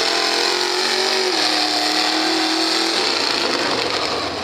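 Mega truck engine running hard under throttle, its pitch held steady, stepping down a little over a second in and fading out about three seconds in.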